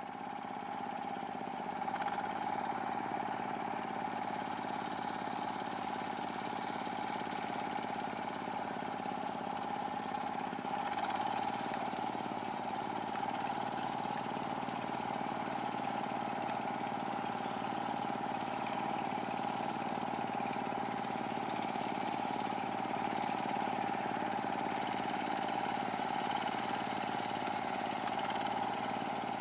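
Chinese D30 diesel engine of a water-channel trenching machine running steadily under load as the machine drives through the muddy field.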